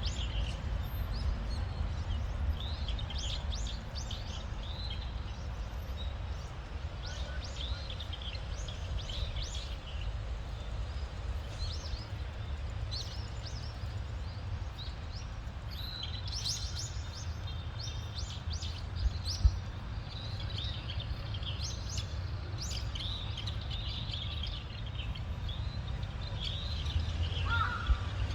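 Small birds chirping and twittering in quick, high, short calls, on and off and busier in the second half, over a steady low rumble. There is one brief bump about two-thirds of the way in.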